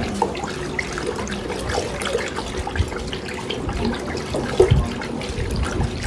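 Water sloshing and swirling in a plastic basin as it is stirred vigorously by hand to dissolve Nitrosol powder, with scattered small knocks.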